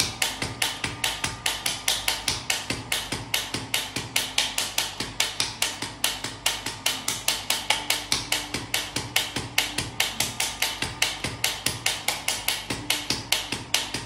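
Radial shockwave therapy handpiece firing a steady train of sharp clicking pulses, about four to five a second, while pressed against the upper back.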